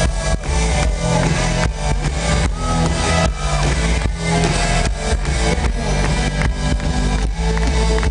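Live rock band playing loud through a festival PA, with heavy bass and drums, recorded on a small camera whose audio is distorted and muddy.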